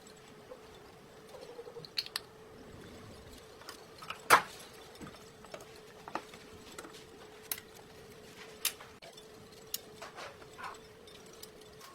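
Scattered light clicks and taps of small hard objects being handled, with one sharper knock about four seconds in, over a faint steady hum.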